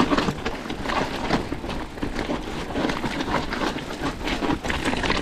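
Mountain bike clattering over a rough, rocky trail: irregular knocks and rattles from the frame, chain and tyres striking stones, over a constant low rumble.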